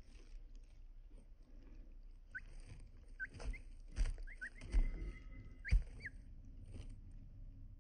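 Bantam chicks peeping softly, a scattering of short high chirps, with a few brief knocks about four, five and six seconds in.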